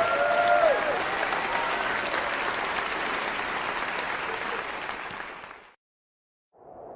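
Crowd applauding with a few whoops near the start, fading out about five and a half seconds in; after a moment of dead silence a low electronic tone begins just before the end.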